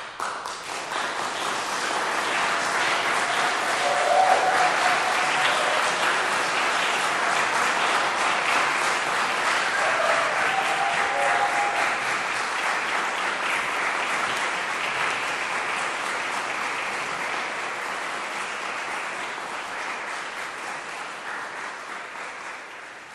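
Audience applauding in a hall, breaking out suddenly as a performance ends, then holding steady before fading toward the end.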